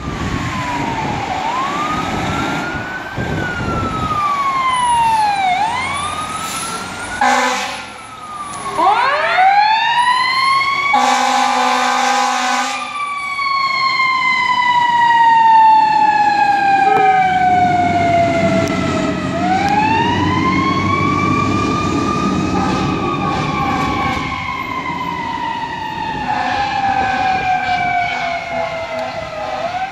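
Fire ladder truck responding with its siren wailing, each cycle rising quickly and falling off slowly. Air horn blasts come about seven seconds in and again, longer, around eleven seconds in, and the truck's engine rumbles as it pulls away.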